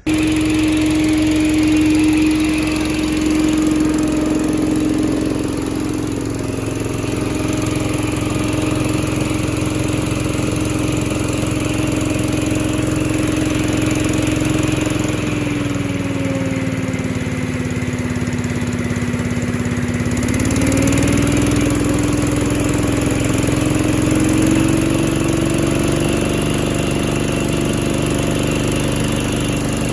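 Little Wonder 13 HP high-output leaf blower running steadily, its Honda single-cylinder engine and fan impeller making a steady hum. The engine speed sags about halfway through and picks back up. No banging from the impeller, now that it is refitted.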